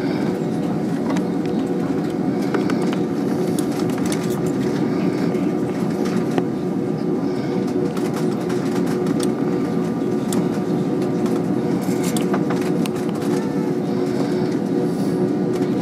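Airbus A320 cabin noise while taxiing: the jet engines' steady hum at taxi power, with a steady tone running through it and occasional light clicks and rattles.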